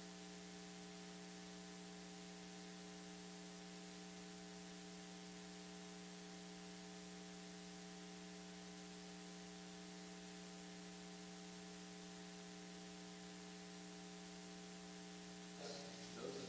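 Steady electrical mains hum with a faint hiss underneath, unchanging throughout; a man's voice begins about a second before the end.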